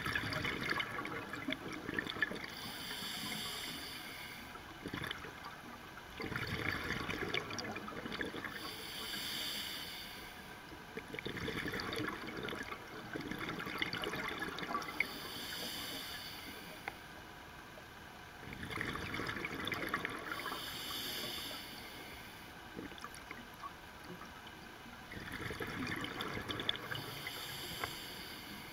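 A scuba diver breathing through a regulator, heard underwater: each breath is a short hiss of inhalation through the demand valve followed by a crackling gush of exhaled bubbles. The cycle repeats about every six seconds, about five breaths in all.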